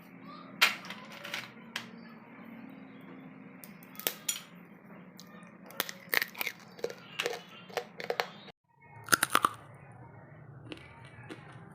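Crisp baked crackers being snapped and handled, giving irregular sharp crunches and clicks over a low steady hum.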